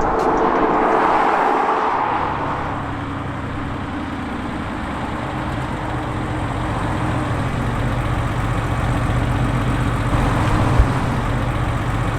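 Porsche 964 Carrera 2's air-cooled flat-six, rebuilt to 3.8 litres with a decat and cup-pipe exhaust, running at a steady note. A louder rushing sound in the first two seconds settles into the steady engine sound.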